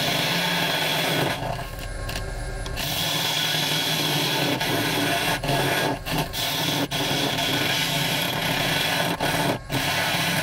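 Wood lathe hollowing a spinning tree-root blank: a steel hollowing tool cutting inside the opening, a continuous rasping scrape of wood shavings. It eases off for about a second just after the start and breaks briefly three more times as the tool lifts off the wood.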